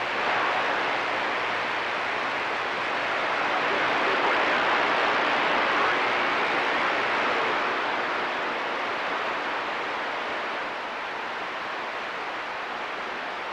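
Steady hiss of CB radio static from the receiver's speaker on an open channel, with no station transmitting.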